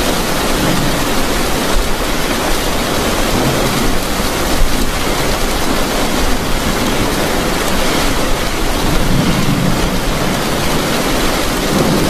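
Heavy rain beating steadily on a car's roof and windscreen, heard from inside the cabin.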